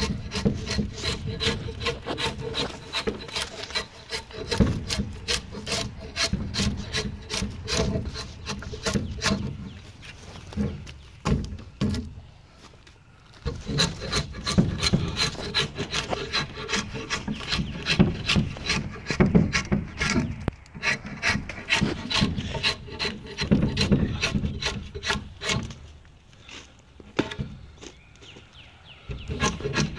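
8-inch straight drawknife shaving bark off a wooden fence post in quick repeated strokes: a rasping scrape of steel blade on wood. There is a short pause a little over a third of the way in and another near the end.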